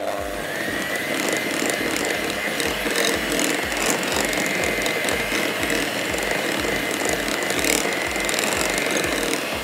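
Electric hand mixer running steadily, its beaters whipping thick cream cheese frosting in a glass bowl. The motor whine rises a little in the first second, holds steady, and cuts off just before the end.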